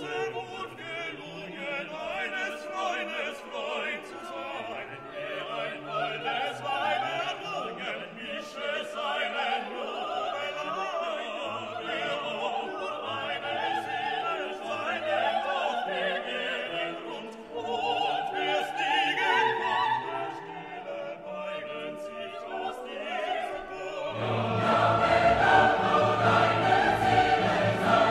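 Background classical music: an orchestra with operatic singing, growing fuller and louder near the end.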